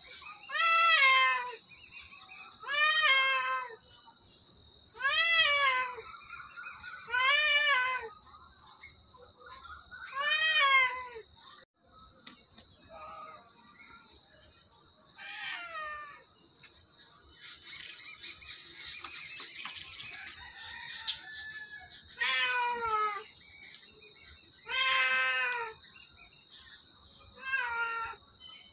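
A cat meowing repeatedly, each meow about a second long, rising and then falling in pitch. The meows come about every two seconds at first, then break off for several seconds in the middle before starting again.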